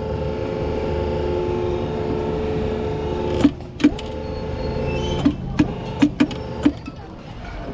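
Bumper boat's electric motor running with a steady whine. Near the middle it cuts out and in several times, each change marked by a sharp click, as the boat's controls are worked to get it moving.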